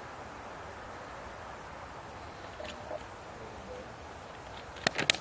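A plastic water bottle filled with dry ice and water, fogging, handled at the neck: a quick cluster of sharp plastic clicks near the end, over a steady background hiss. There is no explosion.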